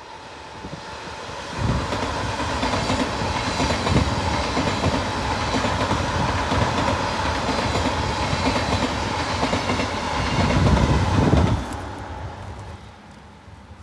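Bicycle riding at speed: wind buffeting the microphone and the tyres rumbling on the forest track, with a steady whirring hum. The rush gets loud about a second and a half in and dies down near the end.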